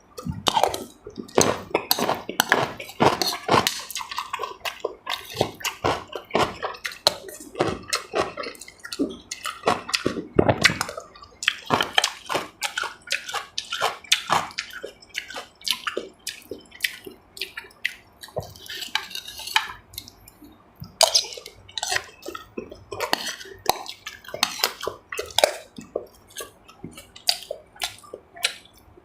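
Close-miked eating: wet chewing, lip smacks and slurping, a dense run of quick irregular clicks, with utensils clinking against dishes now and then.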